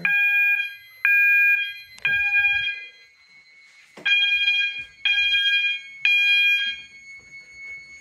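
System Sensor MASS fire alarm sounder giving an 800 Hz tone in temporal code-3: three beeps about a second apart, a pause, then three more, with the next group starting near the end. This is the evacuation pattern of a fire alarm panel in alarm.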